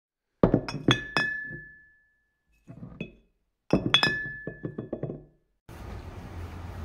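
Intro jingle made of sharp, glassy clinks in two quick runs, each leaving a high ringing tone that fades over about a second. Faint room noise takes over near the end.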